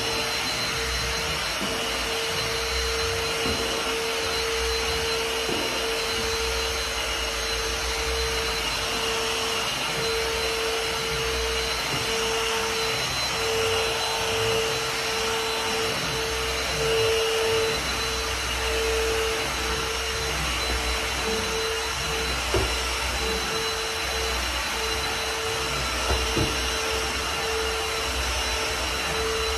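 Vacuum cleaner running steadily, its motor whine holding one pitch with slight wavers, with a couple of light knocks about three quarters of the way through.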